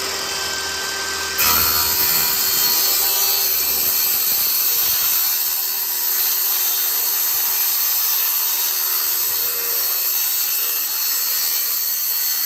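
Circular saw with an ultra-fine finish blade, set to a very shallow depth, cutting through a laminate sheet. About a second and a half in the blade bites into the laminate and the sound grows louder and hissier, then holds steady as the cut runs on.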